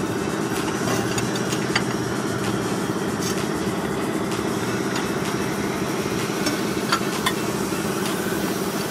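Engine idling steadily, with a few light sharp clicks.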